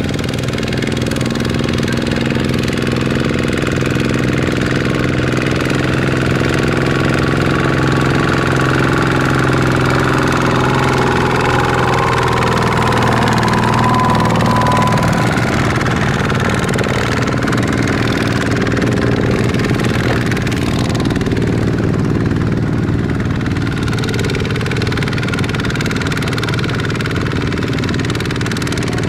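Single-cylinder diesel engine of a two-wheel walking tractor running steadily under load, pulling a trailer loaded with rice sacks across paddy stubble.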